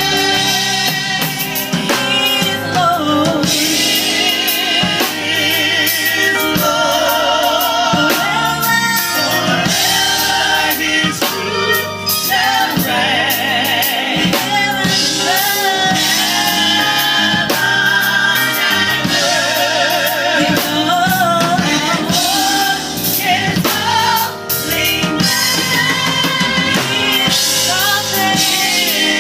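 Gospel worship music: singing with wavering vibrato and melodic runs over a drum kit, without a break.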